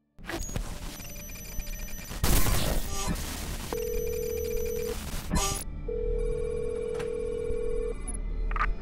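Telephone-line sound with electrical hum and static, a loud crackling burst about two seconds in, then a steady phone tone sounding twice: about a second, a short pause, then about two seconds.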